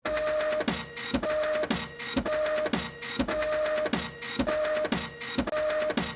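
Background music: a short electronic loop with a quick repeating beat and a recurring held note.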